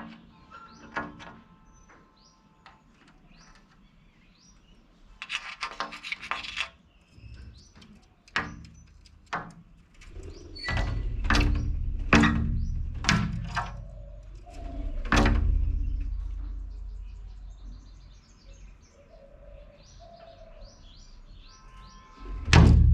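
Wild parrots calling in short harsh screeches, in a quick run about five seconds in and a string of louder single calls in the middle, among lighter bird chirps. A low rumble runs under the middle calls, and a loud sudden sound comes just before the end.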